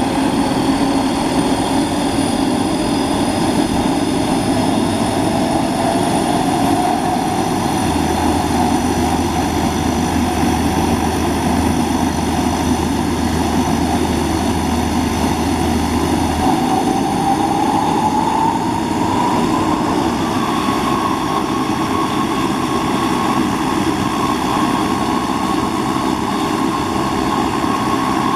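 Convair 580's Allison 501 turboprop running during an engine start, its propeller turning. A whine rises in pitch a few seconds in, rises again about two-thirds through, then holds steady as the engine spools up.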